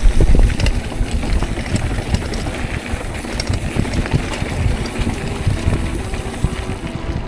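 Wind buffeting the bike-mounted camera's microphone as a mountain bike descends a rough trail, a steady low rumble with frequent clicks and rattles from the tyres and frame over the ground.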